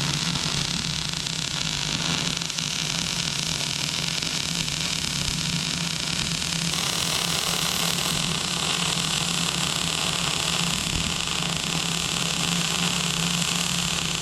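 Electric welding arc burning steadily on a steel bale grab: a continuous hissing crackle with a low hum under it.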